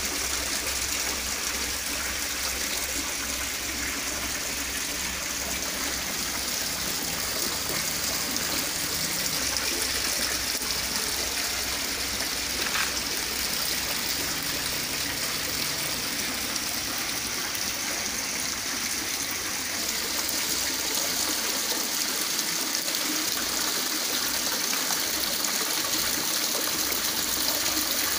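Water splashing and trickling steadily as several small waterfalls pour off the ledges of an artificial rockery (hòn non bộ) into its pool.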